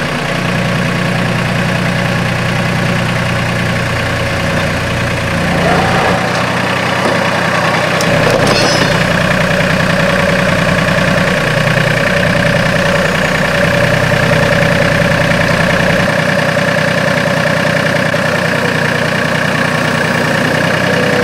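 New Holland Workmaster 25 compact tractor's three-cylinder diesel engine running at low speed as the tractor creeps forward. A higher steady whine joins about a third of the way in.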